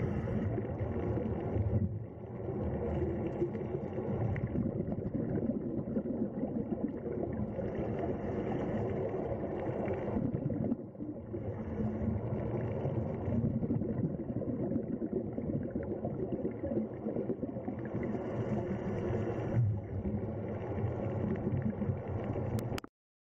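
Underwater sound picked up by a diving camera: a dense, steady rushing gurgle of water, dipping briefly three times, about nine seconds apart, then cutting off suddenly near the end.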